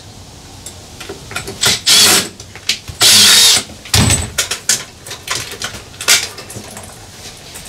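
Clicks, knocks and rattles of cables and metal hardware being handled in a bus's electrical bay, with two short, loud rasping noises about two and three seconds in.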